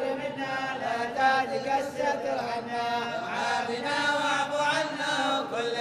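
Men's voices chanting a devotional qasida together, unaccompanied, the melody bending up and down in long drawn notes.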